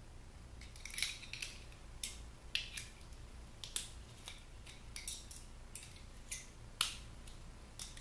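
Irregular sharp clicks and ticks of a screwdriver and Torx bits at work on the screws of a plastic computer speaker, about two a second, the loudest near the end.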